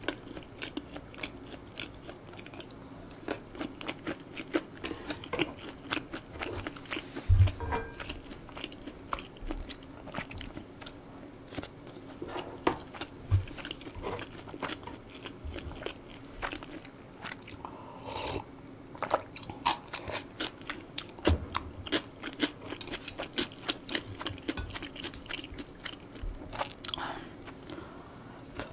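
Close-miked chewing and eating sounds of a person eating stir-fried spicy pork and rice: rapid wet smacks and clicks, with a few dull thumps, the loudest about seven seconds in.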